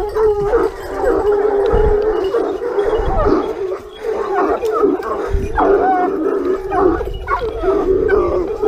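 A pack of Gascon Saintongeois hounds baying on a wild boar, several long howling voices overlapping without a break. A few dull low thumps come through under the baying.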